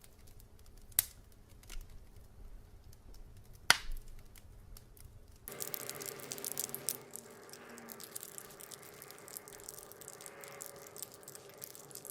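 Foley sound effects: a few sharp clicks or knocks, two of them loud, about one and nearly four seconds in. About five and a half seconds in the sound changes suddenly to a steady hum under a dense patter of small clicks.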